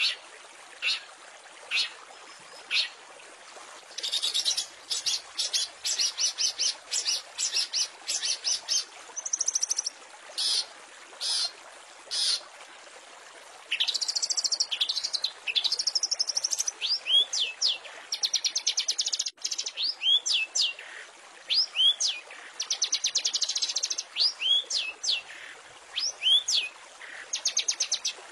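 Long-tailed shrike (cendet) singing: a few separate sharp calls, then fast harsh chattering runs, swooping whistled notes that rise and fall, and rapid buzzy trills, over a steady hiss.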